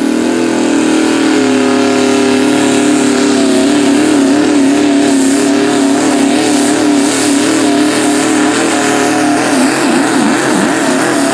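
Pro Stock diesel GMC pickup's engine at full throttle under load, pulling the weight sled. Its high, steady note wavers slightly through the middle of the pull, then falls away and breaks up near the end.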